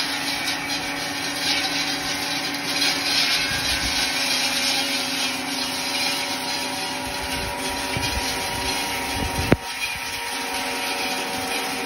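Tractor-mounted shelter-belt trimmer cutting a tall hedge: circular saw blades on a hydraulic boom spinning through the foliage over the steady running of the tractor engine. A single sharp knock about three-quarters of the way through.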